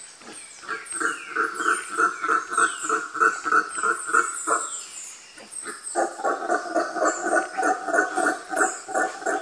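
Howler monkey calling: a deep, rhythmic grunting of about five pulses a second that swells into a fuller, louder howl about six seconds in. High, falling chirps sound faintly above it.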